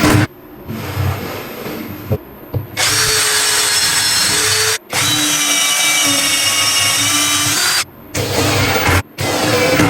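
Electric power tool motor running with a steady high whine, in two long runs broken by a sudden stop in the middle and cut off sharply near the end, after a few seconds of irregular workshop clatter.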